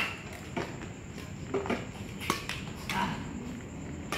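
Badminton rackets striking a shuttlecock in a rally: a string of about six sharp taps, the loudest at the very start and around two seconds in.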